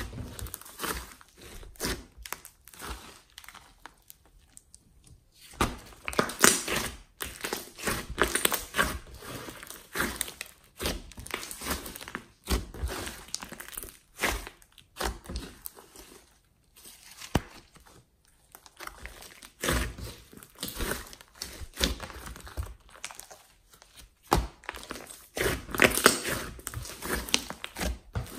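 Hands squeezing, pressing and folding a large glossy slime mixed with clay, making irregular sticky crackles and pops in clusters, with short pauses between squeezes.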